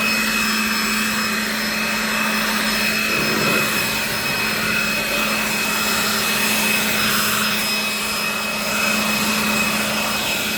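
Ryobi cordless leaf blower running steadily, a high whine over rushing air, blowing snow.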